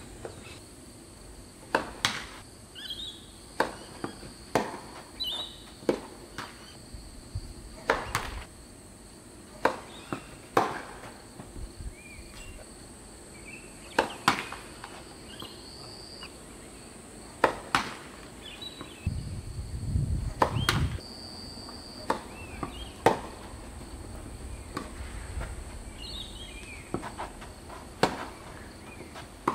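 A tennis ball being struck by rackets and bouncing during serves and rallies: a string of sharp pops one to three seconds apart. A steady, high insect drone runs under them.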